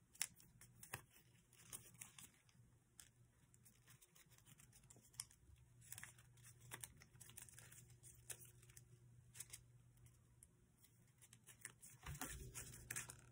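Faint crinkling and creasing of paper being handled and folded into an origami paper airplane, with scattered soft crackles and a slightly busier stretch near the end.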